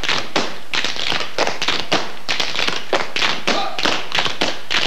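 A group of tap dancers' tap shoes striking a hard stage floor in a fast, rhythmic a cappella routine, many sharp strikes each second with no music.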